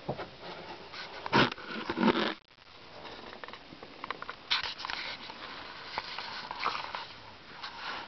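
Handling noise from a camera being picked up and carried: jacket fabric rustling and rubbing against the microphone, with small knocks and clicks. It is loudest in two bursts between about one and two seconds in and drops out briefly just after.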